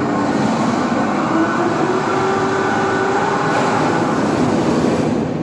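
Overhead crane lifting a WAP-7 electric locomotive body: a steady mechanical hum and whine, louder from the start, with one tone climbing slightly in pitch over the first few seconds.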